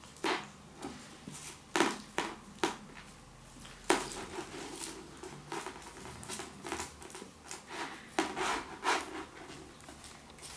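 Irregular light taps, thumps and scuffles of a kitten pouncing and scrambling on a hard floor while batting a feather wand toy, coming in scattered bunches with quiet gaps between.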